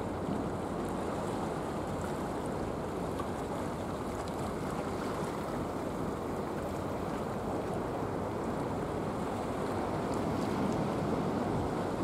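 Boeing 747-400 on final approach, its four jet engines making a steady low rumble that swells slightly near the end as it comes closer.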